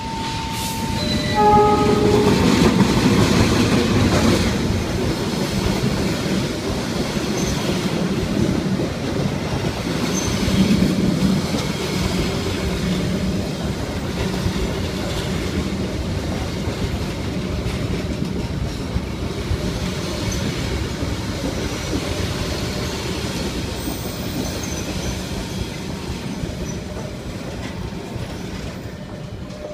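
Indonesian passenger train entering a station: the locomotive's horn sounds a short chord about a second in. After that come the locomotive's rumble and the rattle and clack of carriage wheels on the rails, loudest early on and again around the middle, then slowly growing quieter as the train draws in.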